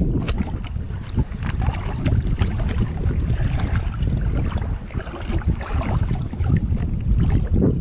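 Wind buffeting the microphone, with water splashing and lapping at the sea's surface.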